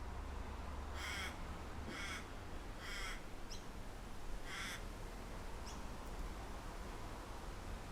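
A bird gives four harsh calls about a second apart, joined by a few short high chirps from another bird, over a steady low wind rumble.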